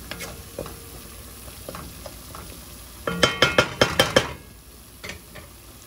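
Seasonings sizzling in a hot pot while a spoon stirs them. About three seconds in, a quick run of ringing clinks and knocks of the spoon against the pot lasts about a second.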